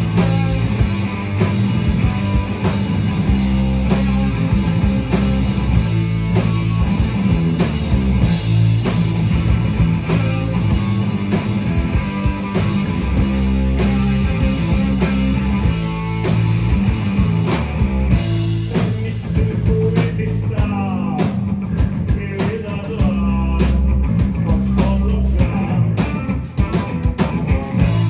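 Live rock band playing loud and steady: electric guitars and bass over a drum kit.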